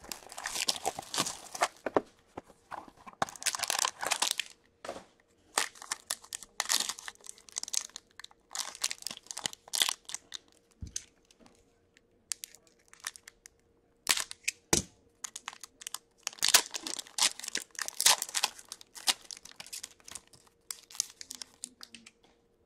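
Cellophane shrink wrap and foil trading-card packs crinkling and tearing in irregular bursts as they are pulled off and torn open, with a couple of soft knocks. A faint steady hum sits underneath.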